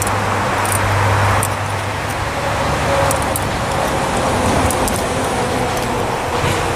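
Steady roar of a running forge, with a few light metallic clicks from tools on the hot steel.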